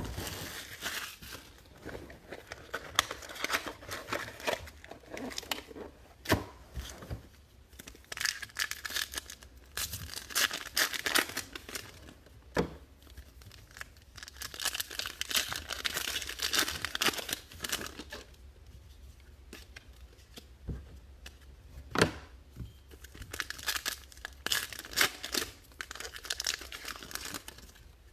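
Trading card pack wrappers being torn open and crinkled, one pack after another, in repeated bursts of rustling with occasional sharp clicks.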